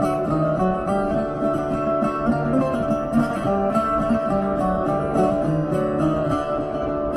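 A busker playing a melody on a stringed instrument laid flat across his lap, the notes ringing on and overlapping one another.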